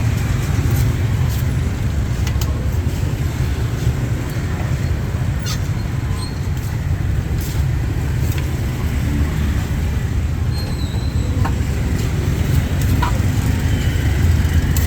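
Busy street ambience: a steady low rumble of traffic with scattered short clicks and clatter.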